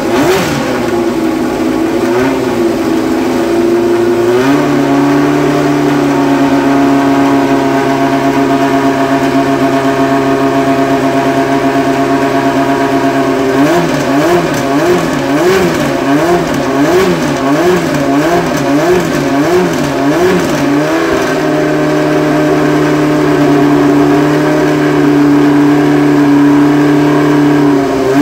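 Williams FW04 Formula One car's Ford-Cosworth DFV V8 running, held at raised revs with the throttle steady. Through the middle it is blipped in a rhythm, the revs rising and falling about twice a second for several seconds, then it settles back to a steady hold.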